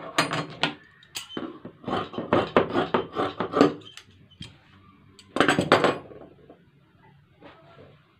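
Steel tailor's shears cutting through fabric: a quick run of crisp snips for about four seconds. About five and a half seconds in, a louder clatter as the shears are set down on the wooden table, then faint rustling of the cut fabric.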